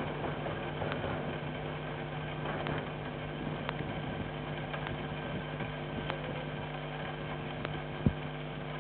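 A steady low machine hum made of several even tones over a hiss, with scattered faint ticks and a single thump about eight seconds in.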